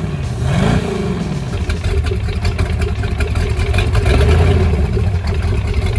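Six-cylinder fuel-injected sterndrive engine of a 1998 Bayliner 2855, run on its trailer with a garden hose feeding the outdrive, blipped up twice in the first second and then running steadily. It is running smoothly with no miss after its injectors were cleaned and new plugs, cap and rotor were fitted.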